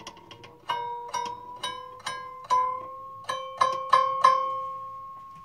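A scroll saw's pin-end blade plucked by finger about ten times to judge its tension, each pluck ringing as a clear tone. The pitch creeps up from pluck to pluck as the blade is tightened, and the last pluck rings on and fades out.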